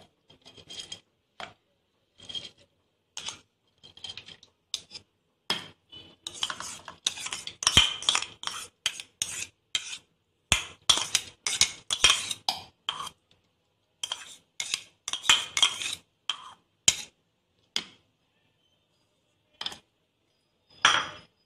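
A metal spoon scraping and clinking against a ceramic bowl and a steel mixer-grinder jar as soaked urad dal is spooned into the jar for grinding. The strokes come quickly and irregularly, with a pause of about two seconds near the end.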